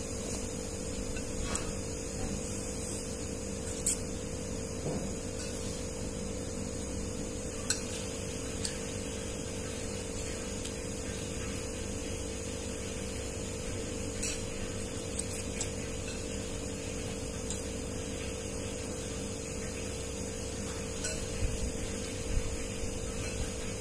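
Steady electrical hum throughout, with a few soft clicks of eating utensils against a ceramic bowl.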